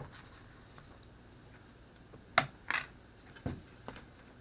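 A few light clicks and taps of a mobile phone and small tools being handled on a desk: a sharp click about two and a half seconds in, another just after, then a duller knock and a last small tick.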